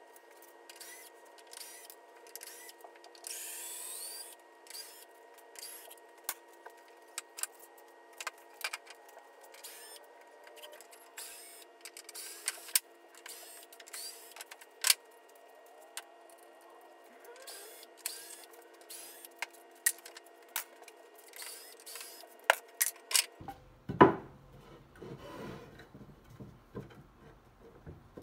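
Cordless drill backing screws out of a 2x4 pine shoe rack, with a short whirring run about three seconds in. After that come many sharp clicks and knocks of the drill and loose boards being handled, and the loudest knock near the end.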